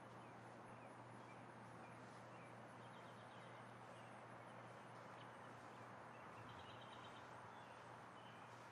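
Near silence: faint steady hiss with a low hum, and a few faint high chirps about three seconds in and again near seven seconds.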